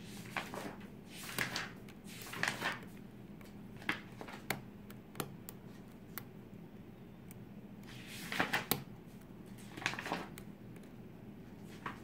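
Metal lock pick scraping and clicking against the pins inside a pin-tumbler lock cylinder held under a tension wrench: irregular small clicks and short scrapes, a few louder clusters of them.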